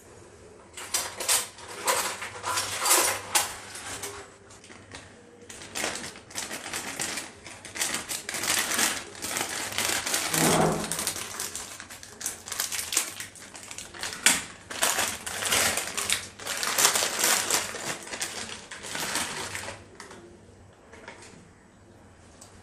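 Crinkling plastic packaging: an instant-noodle packet handled and snipped open with scissors, in a run of irregular crackles and rustles.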